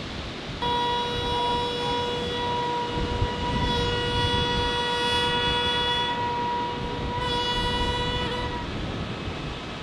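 Gagaku wind instrument played by Shinto shrine musicians: one long held note with strong overtones, starting about half a second in and stopping near the end.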